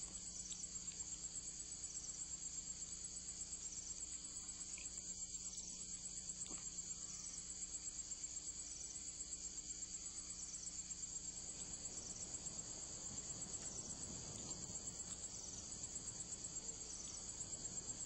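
Night insect chorus of crickets, a steady high-pitched trilling that pulses fast and evenly.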